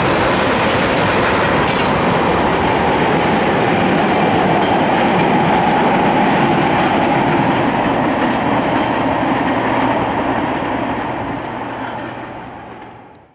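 Freight train of tank cars rolling past, steel wheels running on the rails in a steady, loud clatter that fades out near the end.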